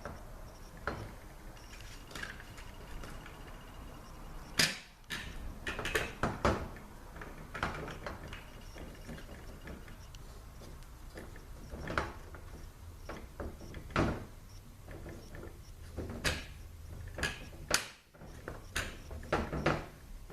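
Irregular clicks and knocks of hard transmission parts being handled and fitted, as a 6R80 valve body is positioned on the transmission to catch the manual valve.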